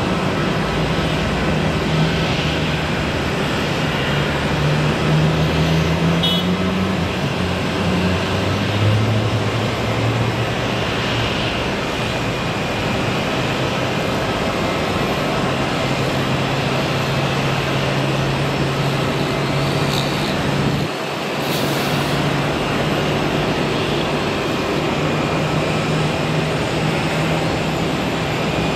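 Jet airliner taxiing at idle, an Airbus A320 with IAE V2527 engines, heard through a steady din like road traffic. A low engine hum rises in pitch from about five to ten seconds in, then holds steady.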